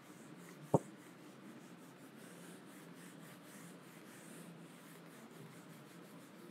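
Whiteboard being wiped with a cloth duster: faint, soft rubbing strokes, with one sharp click a little under a second in.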